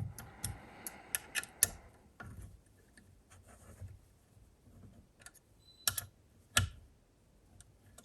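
Irregular light clicks and ticks of an Allen key working the mounting screws of a CPU water block, most of them in the first two seconds and two louder ones about six seconds in.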